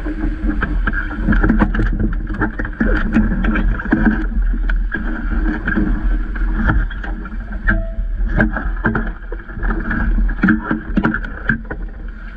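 Water rushing and slapping against the hull of a Vaucluse Junior sailing dinghy moving fast through chop, in many irregular splashes over a constant low wind rumble on the microphone.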